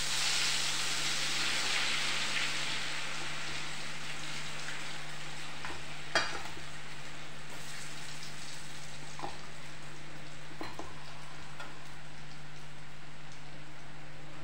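Hot oil in an iron kadhai sizzling loudly as a batch of potato fries goes in, strongest in the first couple of seconds and then settling to a steadier, quieter sizzle. About six seconds in a sharp metal clink comes from the slotted spoon against the kadhai, with a couple of lighter clinks later.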